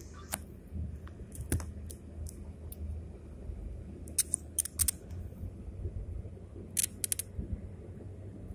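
Steady low rumble of a car moving at highway speed, heard inside the cabin. Over it come sharp, irregular clicks and taps: once about a second and a half in, then in clusters around four to five seconds and near seven seconds, from the phone being handled.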